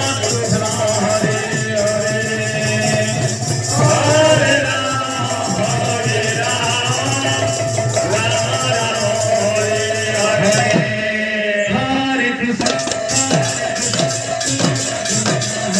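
A women's kirtan group singing a devotional chant to a drum beat and jingling hand cymbals. The cymbals drop out for a moment about eleven seconds in, then come back.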